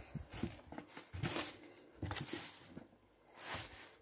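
Rustling and handling of a cardboard cereal box and plastic packaging: a few short crackly swishes with soft knocks in between.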